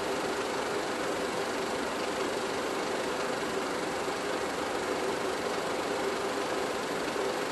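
Steady mechanical whirr and hiss with a constant low hum and no changes, the running noise of a film projector playing old silent footage.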